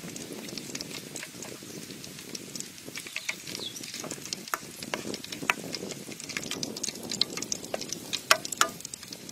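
Pork-stuffed bitter melon rings deep-frying in hot oil: a steady sizzle full of sharp pops and crackles, with a few louder pops near the end.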